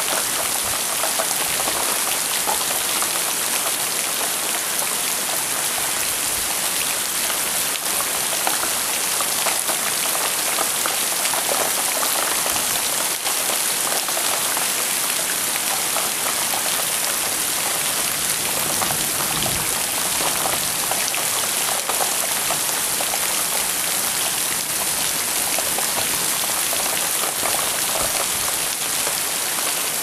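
Heavy rain falling steadily on surfaces, an even, unbroken hiss of countless drops.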